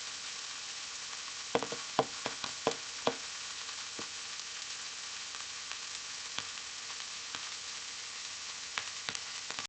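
Butter melting in a hot pan: a steady sizzle with sharp crackling pops, a burst of them between about one and a half and three seconds in and a few more near the end.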